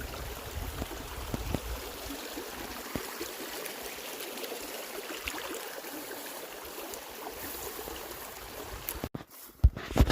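A small stream of water trickling and gurgling steadily. It cuts off suddenly about nine seconds in, followed by a few knocks.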